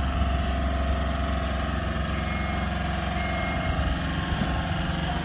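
An engine running steadily at idle, a low, even drone with no change in speed.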